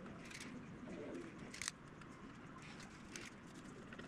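A small spatula smoothing soft epoxy and microballoon filler around a wooden spinner ring on a foam plug: three soft scraping strokes, about one every second and a half. Faint low cooing calls sound in the background.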